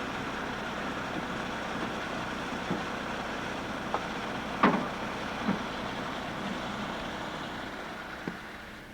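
Steady engine noise with a few sharp knocks, the loudest about four and a half seconds in; the noise eases slightly near the end.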